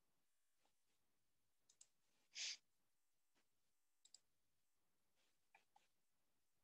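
Near silence with a few faint clicks, typical of a computer mouse or keyboard being used to move to the next slide, and one short hiss about two and a half seconds in.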